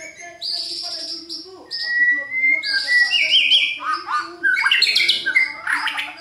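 White-rumped shama singing: harsh, buzzy chatter notes and a drawn-out whistle, then a fast run of short rising sweeps in the second half, the loudest part.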